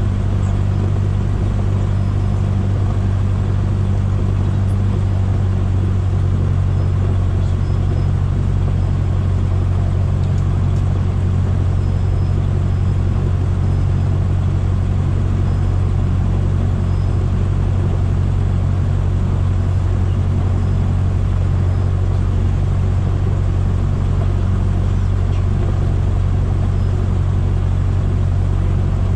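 Single-engine light aircraft's piston engine and propeller running at low taxi power: a steady, even low drone.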